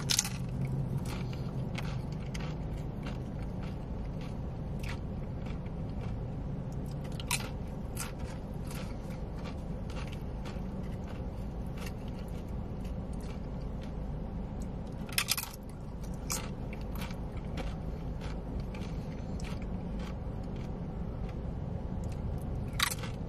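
Close-up crunching and chewing of tortilla chips with dip: a steady run of small crisp crackles, with a louder bite about every seven or eight seconds, over a low steady hum.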